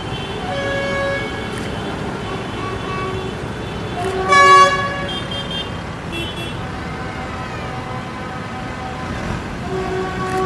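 Parade vehicles' horns tooting on and off over the steady rumble of passing tractor engines, with one loud horn blast about four seconds in.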